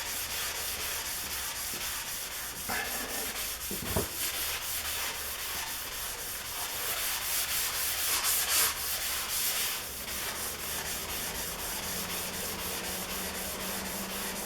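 Sanding the oiled cast-iron table saw top to take off rust stains: a steady scratchy hiss of abrasive rubbing on metal, with a brief knock about four seconds in.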